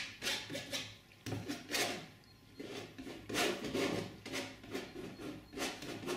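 Painting knife scraping oil paint onto a stretched cotton canvas: a run of short rasping strokes, several a second, with a brief lull about two seconds in.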